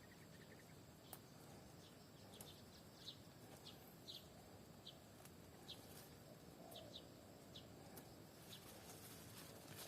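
Faint short, high bird chirps repeating irregularly about once a second over a low hiss, with a few faint clicks.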